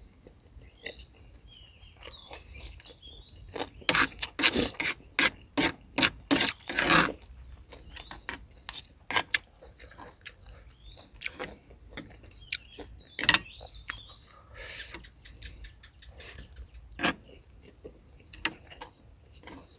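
Eating sounds: chewing and mouth smacks with clicks of utensils on a plate as a person eats spicy stir-fried beef. A dense run of clicks comes about four to seven seconds in, then single clicks scattered through the rest.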